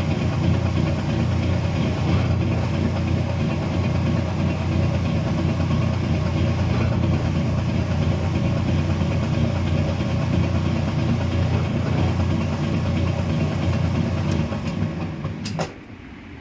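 Kenmore 70 series washer draining: its motor and drain pump run with a steady hum and a weird clicking. Near the end it cuts off with a few sharp clicks.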